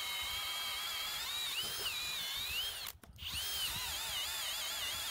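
Kobalt 24V brushless drill running on high, driving a 1-inch spade bit into wood. Its motor whine dips in pitch and recovers as the bit bites. It stops briefly about three seconds in, then starts again for the second hole.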